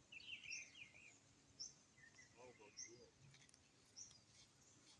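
Birds chirping faintly: short, high chirps repeating about once or twice a second, with a quick run of lower chirps in the first second.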